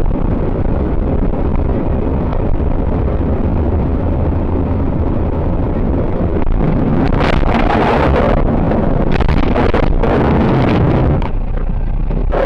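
Dashcam recording of a car driving, with a steady low rumble of road and engine noise. A louder rushing noise comes in about seven seconds in and dies away about four seconds later.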